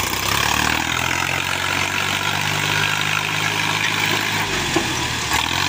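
Sonalika tractor's diesel engine running steadily under load as it pulls a heavily loaded trolley up a slope.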